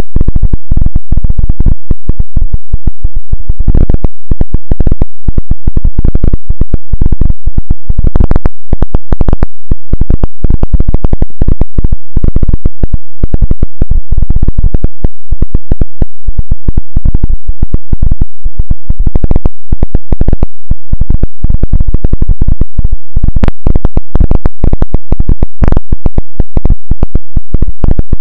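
Loud, heavily clipped electronic noise: a dense, irregular stutter of pulses, heaviest in the low end, at a constant full-scale level.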